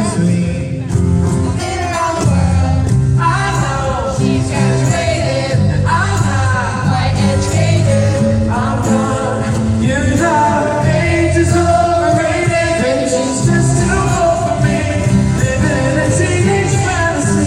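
Live pop-rock band playing a song, with singing over guitars and a steady low accompaniment.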